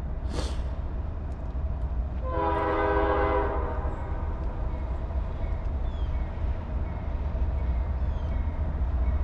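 Air horn of an approaching freight diesel locomotive, sounding one chord blast of about a second and a half, over a steady low rumble.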